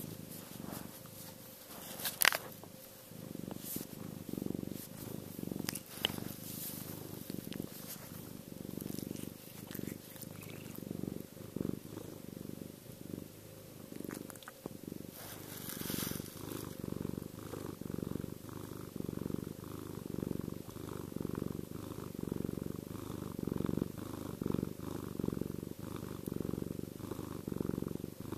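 Domestic cat purring close up, a deep rumble that swells and fades in a steady rhythm. A brief sharp noise about two seconds in and a short rustle around the middle.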